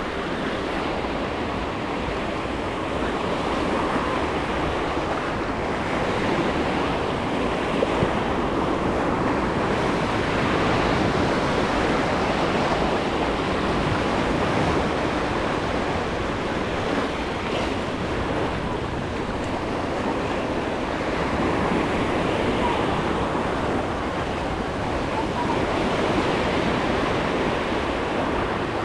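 Sea waves washing onto a sandy beach: a steady rush that swells and eases gently.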